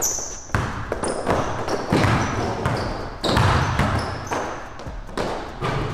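Basketball being dribbled on a hardwood court floor: a string of sharp, unevenly spaced bounces.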